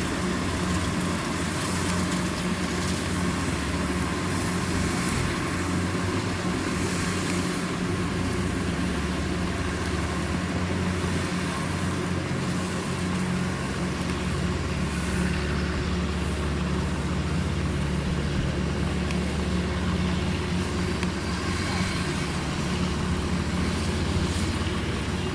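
Kubota combine harvester's diesel engine running steadily under load while it cuts rice, with a constant low hum and the rushing noise of the cutting and threshing gear.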